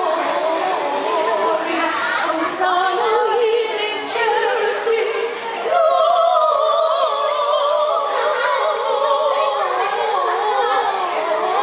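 A small group of carol singers, two women and a boy, singing a Christmas carol unaccompanied, the held notes wavering with vibrato. The singing dips briefly about five and a half seconds in, then comes back louder on the next phrase.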